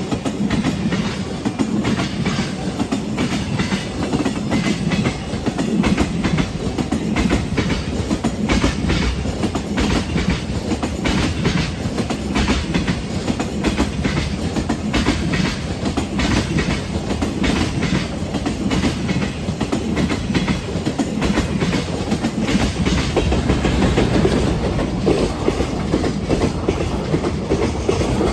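Freight train running past, its wagon wheels clacking loudly over the rail joints again and again over a steady rolling rumble.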